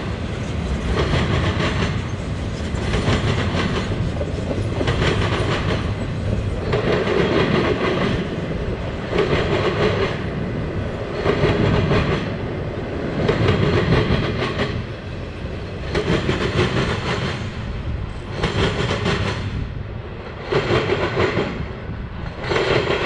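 A freight train of empty flatcars rolling past. Its wheels clatter in a rhythm of louder bursts about every two seconds over a steady rumble.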